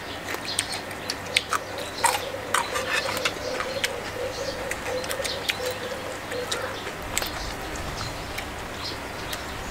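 Close-up eating sounds of crispy fried salmon and raw vegetables: crunching, chewing and small mouth smacks, heard as a quick, irregular string of sharp clicks and crackles.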